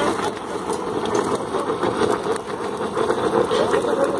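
Rail-welding preheating burner flame blowing into the mould around the rail joint: a steady, rough rushing noise with a fast flutter. This is the short pre-heating of the rail ends before the thermite weld is poured.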